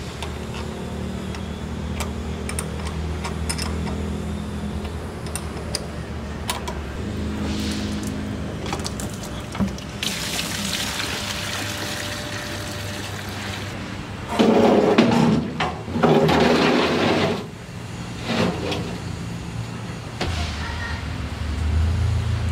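Liquid splashing as it drains from the open outlet of a Liquid Controls M-7-1 flow meter into a steel drum. The splashing starts about ten seconds in and is loudest a few seconds later. Before that there are sharp metal clicks from a wrench on the hose clamp over a steady low hum, and the hum returns near the end.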